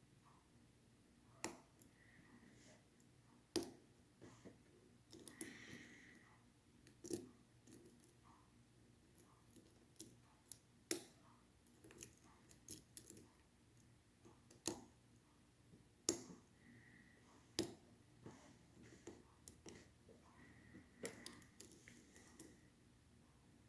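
Scattered small metallic clicks and light scrapes, irregular and about one every second or two, as a lock pick and tension wrench work the top pin stack of a Schlage Primus lock cylinder. The lock is being picked again from the start after all its set pins dropped.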